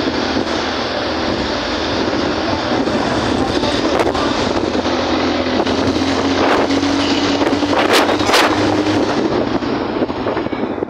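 Steady noise of riding in a moving vehicle: wind buffeting the microphone over a running engine, whose note rises slowly midway. A few sharp knocks come about four and eight seconds in.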